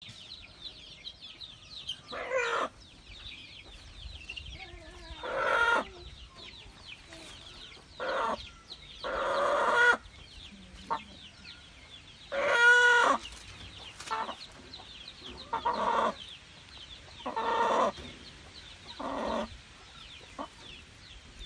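A young cockerel squawking in distress while held down for caponization, with about nine loud cries spaced a second or two apart.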